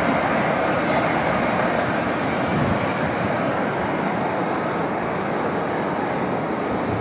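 Steady, dense din of a huge crowd of pilgrims circling the Kaaba, countless voices and footsteps blending into one continuous murmur.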